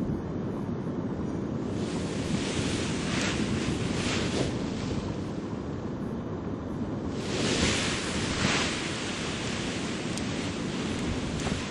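Strong wind blowing across the microphone, a continuous rushing noise that swells louder in gusts a couple of times.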